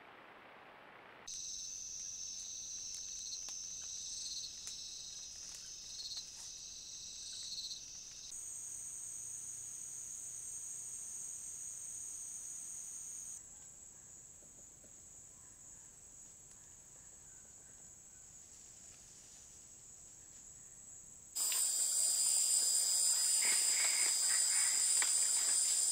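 Steady high-pitched chorus of Amazon rainforest insects, its pitch and loudness changing abruptly several times; it is loudest over the last four seconds or so.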